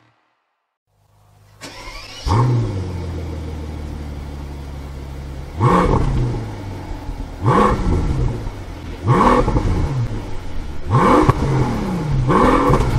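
Mercedes-Maybach S650's 6-litre twin-turbo V12 starting with a flare about two seconds in, settling to a steady idle, then blipped five times, the pitch rising and falling with each rev.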